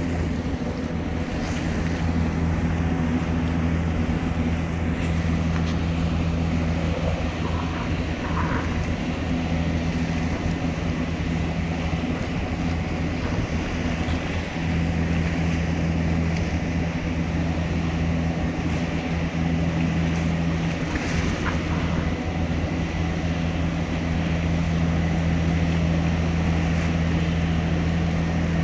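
Diesel engine of a mobile boat hoist (travel lift) running steadily, a constant low drone with no change in pitch, while the hoist holds a yacht in its slings.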